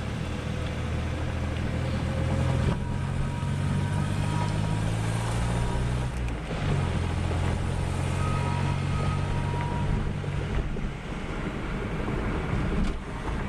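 Geo Metro under way, heard from inside the cabin with the window open: the engine's low note runs steadily beneath road and wind noise. The engine note breaks off briefly about six seconds in and then resumes.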